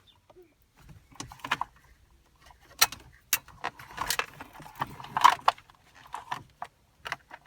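Plastic wiring-harness connectors being unclipped and pulled from behind a car's center dash panel: a run of irregular clicks and rattles.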